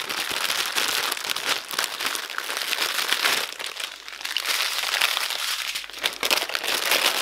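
Small clear plastic bags of diamond painting drills crinkling and rustling as they are handled and sorted through by hand, a dense crackle of plastic that runs on with only brief lulls.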